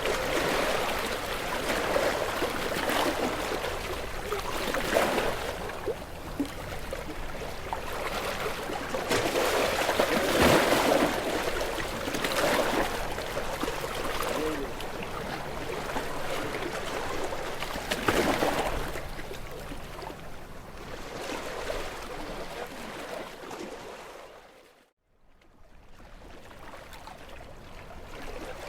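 Sea waves washing against shoreline rocks, surging and falling away every few seconds as each wave breaks and drains. The sound drops out briefly near the end, then comes back.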